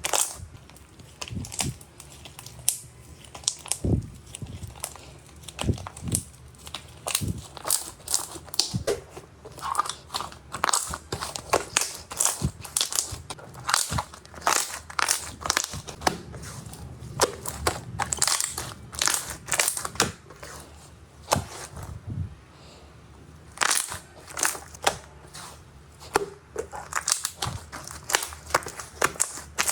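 Slime being squeezed and pressed by hand, with a dense run of sharp crackling and popping clicks and a brief lull about two-thirds of the way through.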